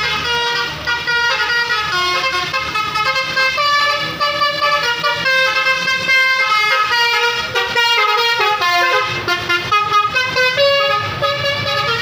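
Tour bus's Basuri telolet musical air horn playing a quick tune of stepped, changing notes. A low engine rumble is under it briefly at the start and comes up again near the end.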